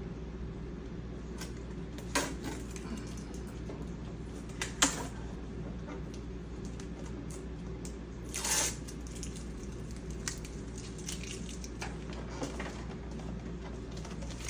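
Scattered short rustles and clicks of shipping packaging and tape being handled and pulled off a new laser printer, over a steady low hum.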